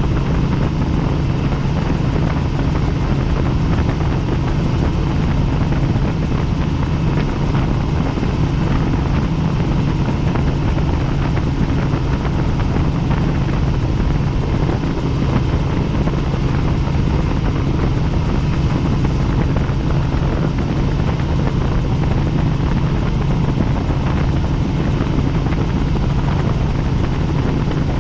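Helicopter in flight, its rotor and engine running with a steady, unchanging drone.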